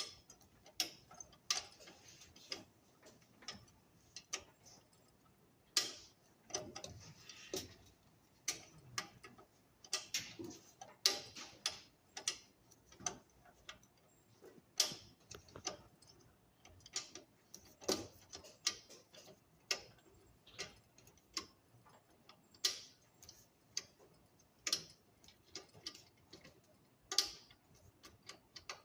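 Irregular clicks and taps of tools and metal parts being worked on a Jet belt sander while it is taken apart for a belt change, about one or two clicks a second.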